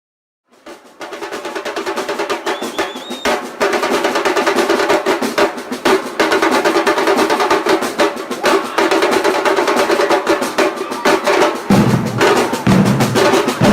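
Music with fast, dense drumming over a steady held tone, starting after a brief silence; a deep bass part comes in near the end.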